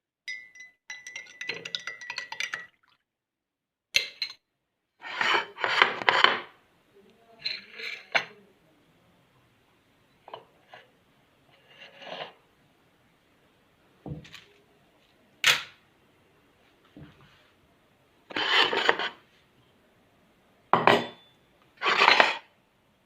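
Kitchen bowls and utensils clinking and knocking in a string of separate bursts, the first strike ringing on briefly.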